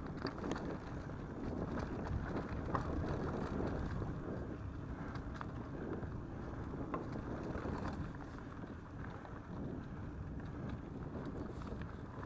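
Mountain bike rolling fast along a dirt forest trail: wind buffeting the microphone over the steady rumble of the tyres on the ground, with scattered small clicks and rattles from the bike.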